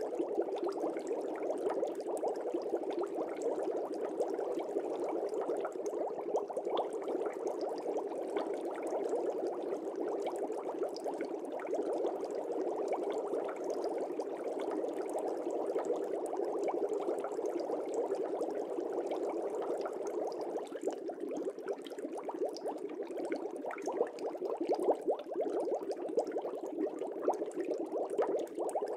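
Fish tank air bubbles streaming up and popping at the water's surface: a steady, dense bubbling made of many small pops.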